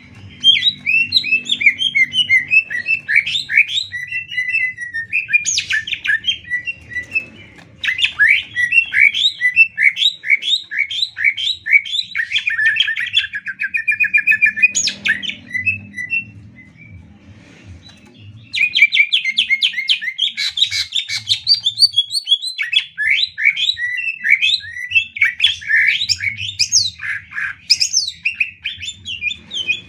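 Cucak ijo (greater green leafbird) singing: long bouts of fast, varied chirps, slurred whistles and trills, broken by two short pauses.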